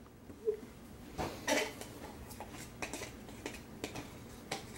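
Scattered light clicks, taps and scrapes of a metal butter knife against a jar as almond spread is scooped out, about eight small strokes spread over the few seconds.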